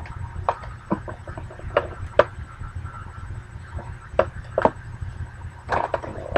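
Scattered light clicks and knocks from hands handling a plastic drip coffee maker and its parts, over a low steady hum.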